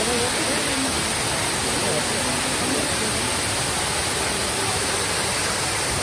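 Tall waterfall pouring down a rock cliff: a steady, even rush of falling water.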